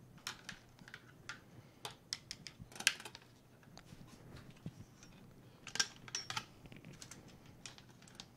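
Light, irregular clicks and taps of wires and their plastic connectors being handled and dropped against the top plate of a delta 3D printer frame. The clicks come in small clusters, the sharpest about three seconds in and another burst a little past halfway.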